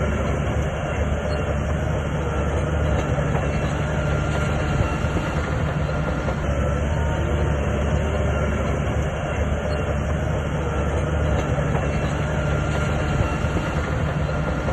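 SHANTUI crawler bulldozer working: its diesel engine running steadily under load, with the clatter of its steel tracks.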